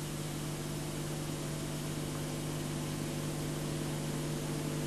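Steady electrical hum with hiss from the soundtrack's background, with no distinct event.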